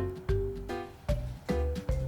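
Background music: a bright, bouncy tune with a steady beat and short melody notes.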